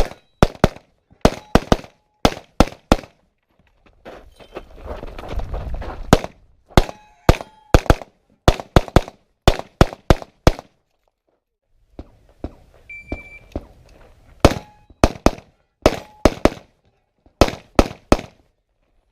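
Rapid pistol shots in a practical shooting stage, fired mostly in quick pairs, in several strings. Between the strings come a few seconds of rustling noise and a short lull.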